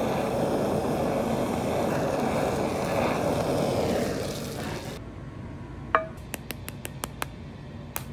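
Handheld butane kitchen torch hissing steadily as it caramelizes sugar on custard, fading out after about four seconds. Then a spoon strikes the hardened caramel crust: one sharp clink, followed by a quick run of sharp taps and cracks.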